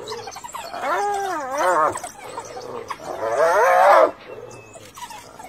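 A hyena crying out twice while mobbed by African wild dogs, each cry loud, about a second long and wavering up and down in pitch.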